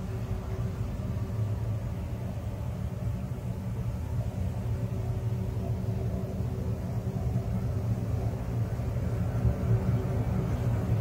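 Low, steady rumbling ambient drone with a few faint held tones above it, swelling slightly toward the end. It is a 'sound of space' track, presented as electromagnetic signals from space converted into audible sound.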